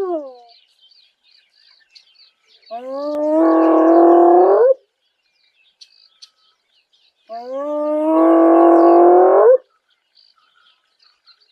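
Hyena giving long whoops, each call about two seconds long and rising steadily in pitch, with a pause of a few seconds between calls. Two full whoops are heard, after the tail of an earlier one.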